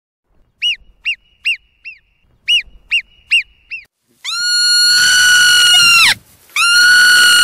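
Marmot calling: eight short, sharp chirps in two groups of four, then a long, shrill, steady whistle of nearly two seconds, and a second long whistle beginning after a short break near the end. These whistles are the calls marmots give to one another or when threatened.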